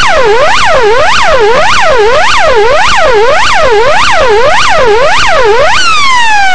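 Police car siren on a fast up-and-down yelp, about two cycles a second. Near the end it changes to a single long falling tone as the siren winds down.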